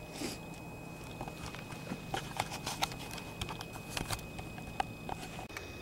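Scattered light clicks and knocks at an irregular pace, the sound of gear being handled as the hunter gets moving after the shot.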